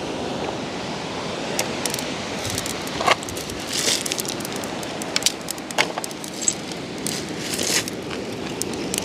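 Steady wind and surf noise, with scattered sharp crackles and rustles from burning kindling and driftwood being lit and handled.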